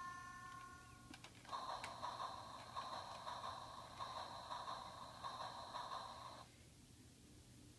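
Electronic baby activity toy sounding through its small speaker: a steady electronic tone that stops about a second in, then a buzzy electronic sound for about five seconds that cuts off abruptly.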